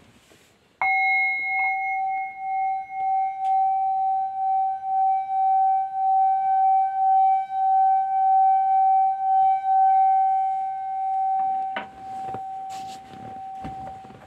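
Metal singing bowl struck once by a mallet, ringing with one long pulsing tone and fainter higher overtones that swells over several seconds. Near the end a click comes and the tone drops sharply to a softer ring.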